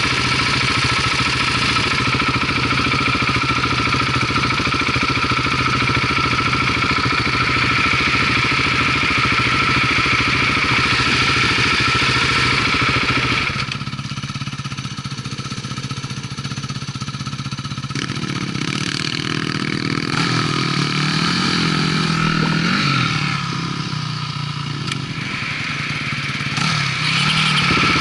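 Off-road motorcycle engine running on a trail ride. It runs steadily and loud, then drops to a quieter running about halfway through, with the revs rising and falling several times. It comes back up loud just before the end.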